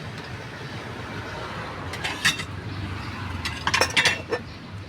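Utensils clinking against dishes in two quick clusters of light strikes, over a steady low background rumble.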